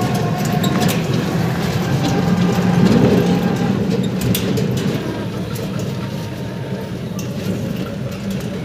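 Ride in an open e-rickshaw over a rough, broken road: a steady low rumble of tyres and road with frequent rattles and knocks from the metal frame.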